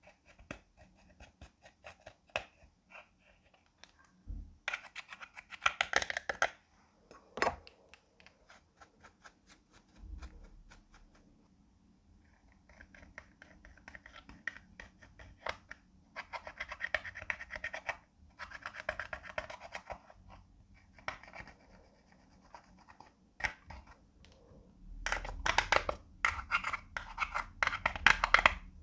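Clear slime being worked by hand: dense runs of small clicks and crackles in bursts that come and go, loudest near the end.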